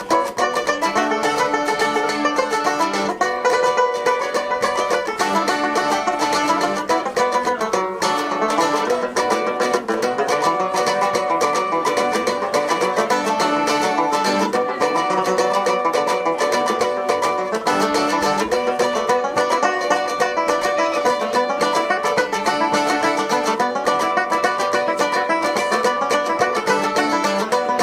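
Live acoustic band playing an up-tempo instrumental passage, led by fast picking on plucked string instruments.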